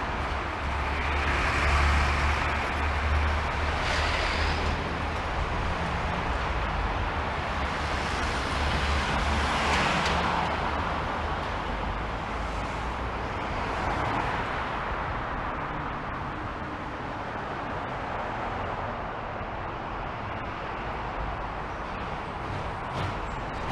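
City road traffic: cars and other vehicles passing, a continuous rumble and tyre noise that swells as vehicles go by, around two seconds in and again near ten seconds, and eases off in the second half.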